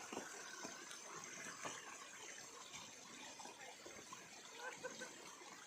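Faint, steady rushing of water, with a few faint short chirps about five seconds in.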